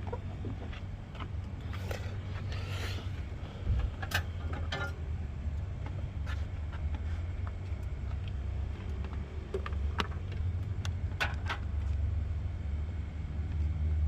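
Scattered light clicks and rattles of hands working at the fuse box under the steering column with a test light, over a steady low rumble.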